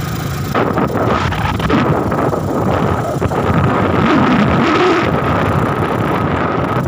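A road vehicle running while riding in it, with wind buffeting the microphone.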